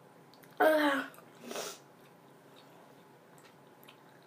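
A girl makes a short strained vocal noise in her throat about half a second in, then a brief breathy sound, reacting to the sourness of very sour chewing gum.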